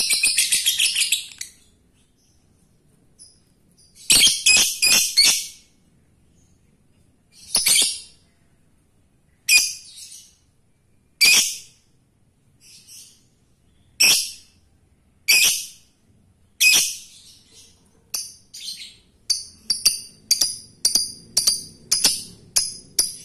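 Fischer's lovebird calling with sharp, high chirps: a fast chatter that stops about a second in, a short cluster a few seconds later, then single chirps every second or two, quickening near the end into a run of about three chirps a second. These are a male lovebird's calls to a female.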